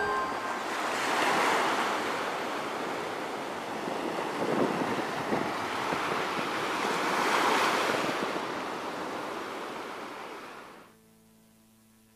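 Ocean surf washing onto a sandy beach, with wind on the microphone. The waves swell about a second in and again around seven seconds, then the sound fades out about eleven seconds in.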